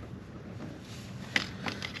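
A few short metallic clicks and clinks of hand tools against metal engine parts, irregular and coming in the second half, over a steady low hum.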